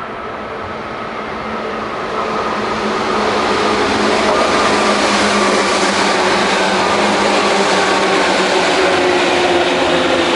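Electric commuter train on the Tokyu Den-en-toshi Line approaching and passing close by. Its traction motors give a loud whine of several steady tones over the rush and rumble of wheels on rail. It grows louder over the first four seconds, then holds as the cars go by.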